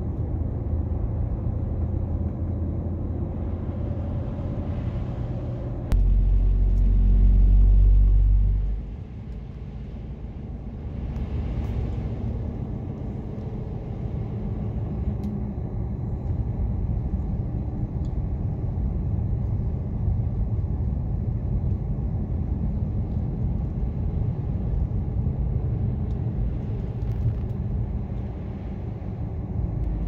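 Road noise heard inside a car driving on a snow-covered road: a steady low rumble of tyres and engine. A few seconds in it suddenly turns louder and deeper for about three seconds, then drops back.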